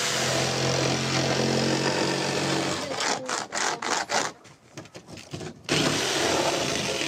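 Electric jigsaw cutting through an OSB board, its motor running steadily, then stopping about three seconds in. A few short scrapes and knocks follow, and the jigsaw starts cutting again near the end.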